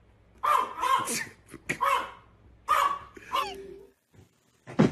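Small dog barking in several short bursts through the first three seconds or so.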